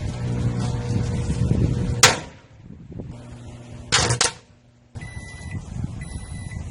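Microwave oven humming with firecrackers exploding inside it: one sharp bang about two seconds in and two quick cracks about two seconds later. A thin, steady high tone comes in about five seconds in.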